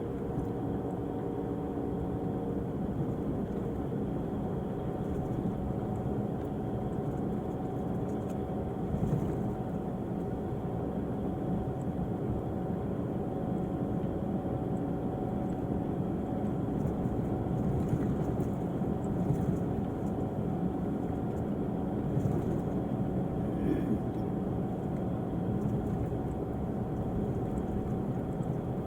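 Engine of an Irizar i6s coach on a Volvo chassis running steadily, a few faint steady tones riding over a low, even noise.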